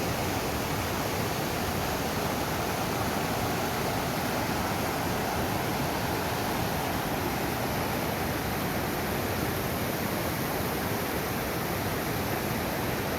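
Mountain river water rushing, a steady, unbroken roar of flowing water.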